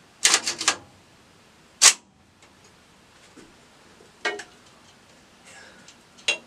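A handful of short, sharp clicks and knocks from handling the mounted blank-firing shotgun as it is readied: a quick cluster near the start, a single loud sharp snap about two seconds in, then two fainter clicks later.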